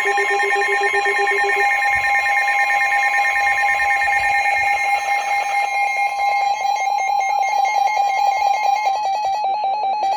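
Emergency Alert System attention signal ahead of a special marine warning: loud, steady electronic alarm tones, several sounding together. A lower pulsing beep stops about a second and a half in, and the tones turn choppy in the second half.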